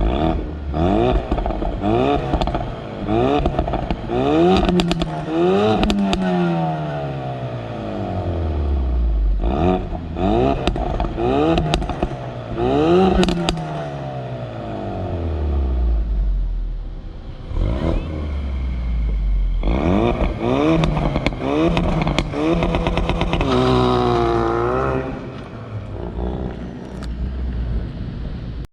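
Ford Focus RS engine with a muffler-bypassed exhaust, revved up again and again and falling back, with sharp pops and crackles. A wavering rev near the end.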